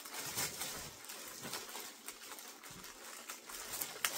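Thin clear plastic bag crinkling and rustling in irregular crackles as it is pulled open and off a bicycle helmet.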